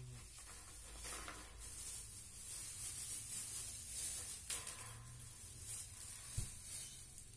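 Plastic packaging rustling and crinkling as fan parts are unwrapped and handled, with one sharp click about six seconds in.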